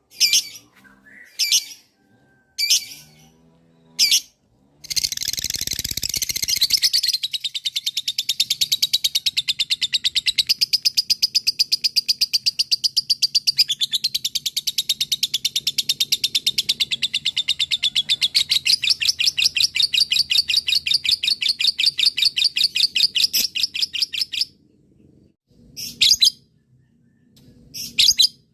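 A lovebird gives a few short, sharp chirps, then about twenty seconds of long, rapid, chattering trill (the 'ngekek panjang' that hobbyists prize), then a couple more short chirps near the end.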